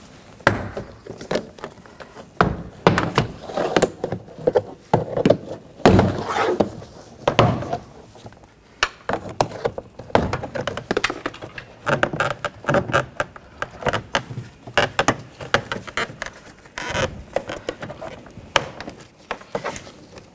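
Car door trim panel being pried off with a trim tool: an irregular run of snaps, knocks and rattles as the retaining clips pop out around its edge.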